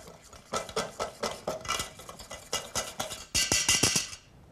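Wire whisk stirring a cream in a stainless steel bowl over a bain-marie, a quick string of metal clicks and scrapes against the bowl, busiest near the end.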